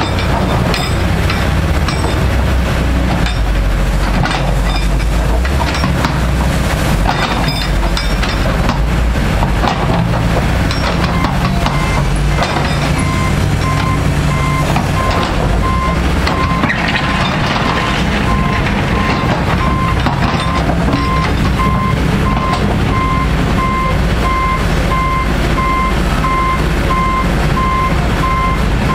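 Caterpillar 325C hydraulic excavator's diesel engine running steadily under working load, with occasional knocks in the first half. Partway through, a backup alarm starts beeping at an even pace and keeps going.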